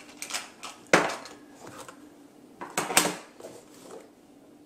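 Metal keys and hardware clinking as items are shifted inside a small zippered pouch: a sharp clink about a second in, a cluster of clinks near three seconds, and quieter handling rustle between.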